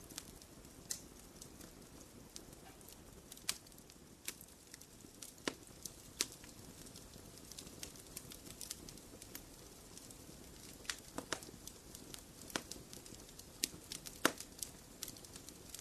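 Wood fire in a fireplace crackling: irregular sharp pops and snaps, several a second at times, over a steady low hiss of burning.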